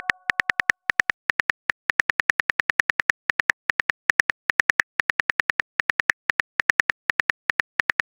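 Simulated phone-keyboard typing clicks from a texting app: a rapid run of short, crisp ticks, about seven a second, with brief gaps, one tick per letter typed.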